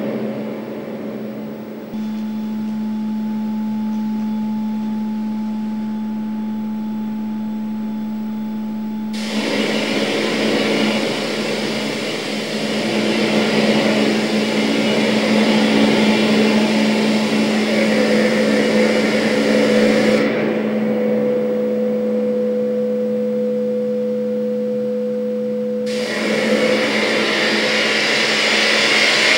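Live electronic noise music made in Max/MSP and Ableton: a steady low hum with a thin held tone above it, under layers of hiss that cut in and out abruptly several times. The hiss swells fuller and brighter near the end.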